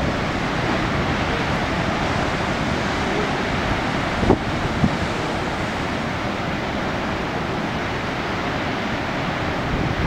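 Steady rush of wind and ocean surf, with wind buffeting the microphone. Two brief knocks come about four and a half seconds in.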